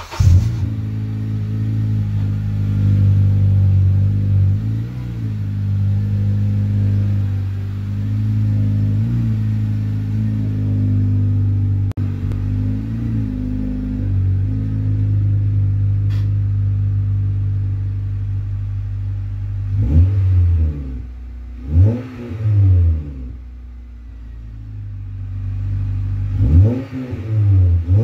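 Honda Civic's swapped-in K24 four-cylinder engine idling steadily with small changes in pitch. From about twenty seconds in it is revved in several quick throttle blips, each rising and falling.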